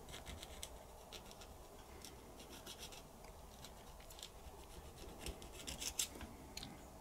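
Faint, irregular scratching of a thin metal pick scraping hardened deposits off a small steel part of a Singer 201K sewing machine's rotating hook assembly, in many short strokes.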